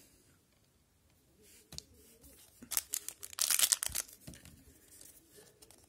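Foil wrapper of a 2021-22 Upper Deck Series One hockey card pack crinkling and tearing open. It starts about a second and a half in and is loudest between about three and four seconds in.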